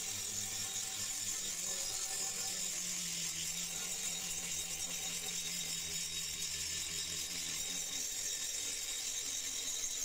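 Handheld angle grinder running steadily, its abrasive disc grinding along the steel edge of an old meat cleaver.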